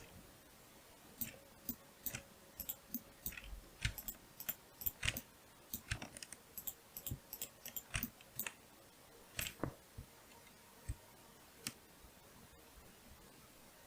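Computer mouse buttons and keyboard keys clicking in irregular runs of sharp clicks, from about a second in until near the end.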